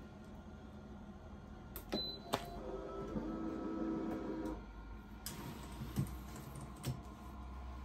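Automatic heat press clicking twice, then giving a steady tone of about two seconds, followed by a few soft knocks as a T-shirt is shifted on its lower plate.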